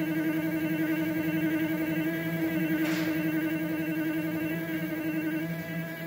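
Stepper motor of a homemade CNC hot-wire cutter turning its threaded-rod lead screw, a steady pitched whine with several overtones. A brief hiss about three seconds in.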